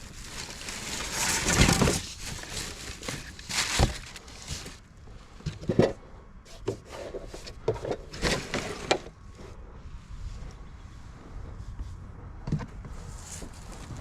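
Junk being handled and rummaged through: rustling with a couple of louder knocks in the first few seconds, then scattered clicks and clatters.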